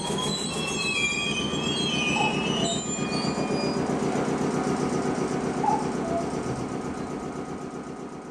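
Iyotetsu streetcar pulling away over the station tracks and points, its wheels squealing in high tones for the first few seconds over a steady rolling rumble that fades as it leaves.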